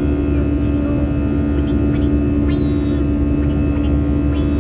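Aeroplane engines running in a steady drone during takeoff, with a strong unchanging hum over a low rumble.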